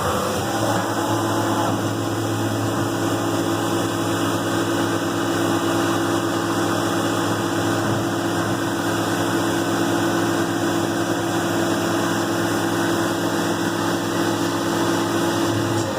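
CNC milling machine running its program just after cycle start: the spindle is up to speed and runs at a steady pitch, a steady multi-tone hum over a hiss with the coolant on.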